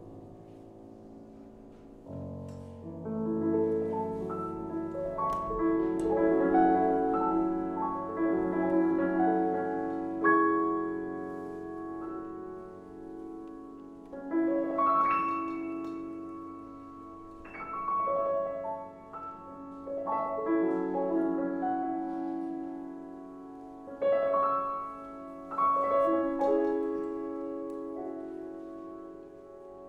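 Solo grand piano playing classical music. It is soft for the first couple of seconds, then grows into fuller sustained chords, with several sharply accented chords that ring and fade.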